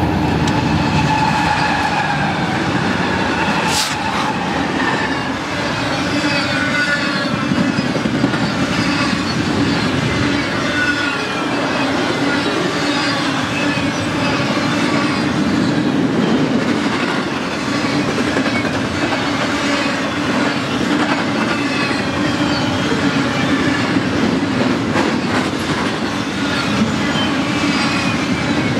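BNSF double-stack intermodal train passing close by: the GE ES44C4 diesel-electric locomotives go by as it begins, then a long string of loaded container well cars rolls past with a steady rolling rumble and many short, falling squeals from the wheels.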